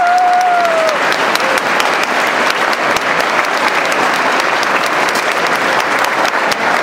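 Audience applauding, a dense steady patter of many hands clapping. A single high held note sounds over it at first and stops about a second in.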